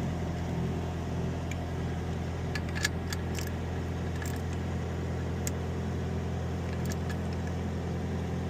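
Steady low hum of an idling engine, with a few short, light metallic clinks scattered through it.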